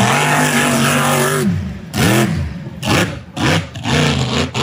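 High-performance speedboat engine running hard at a steady pitch, then, about a second and a half in, dropping and surging up and down in a series of short revs, about two a second, as the boat runs over rough water.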